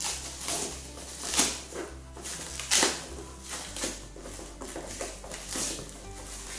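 Clear plastic shrink wrap on a cardboard box being torn and pulled off. It crinkles and crackles in irregular bursts.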